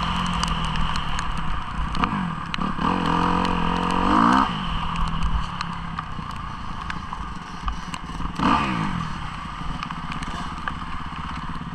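Motocross bike engine running at low revs, with a rising rev about two to four seconds in and a short throttle blip about eight and a half seconds in.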